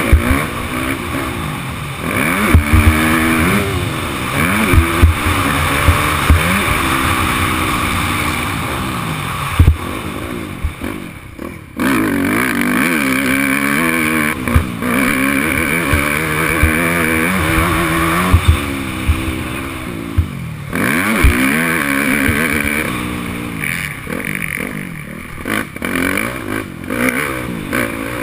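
A Yamaha YZ250F's four-stroke single-cylinder motocross engine, heard from the rider's helmet, revving up and down through the gears as it accelerates and backs off around a dirt track. A steady rush of noise and sharp low thumps run under it as the bike hits bumps. The engine drops away briefly about eleven seconds in and again around twenty seconds, then pulls hard again.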